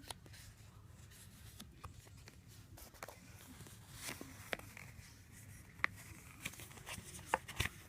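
Faint rustling of paper and plastic packaging being handled, with scattered small clicks and a sharper tick near the end.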